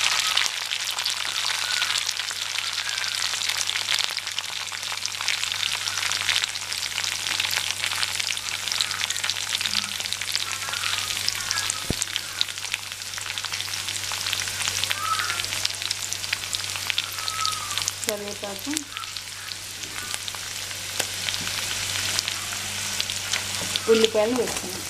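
Green chillies, garlic and ginger frying in hot oil in a kadai: a steady, dense sizzle full of fine crackles and pops.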